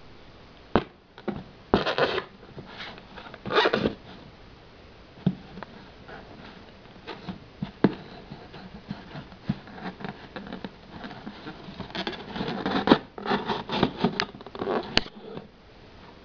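Handling of a folding knife: several sharp clicks spread through, among bursts of scratching and rubbing, with a dense run of rubbing and clicking near the end.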